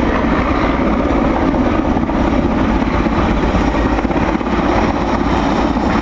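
Large Mi-8/Mi-17-type transport helicopter flying low overhead: a loud, steady rotor and turbine noise.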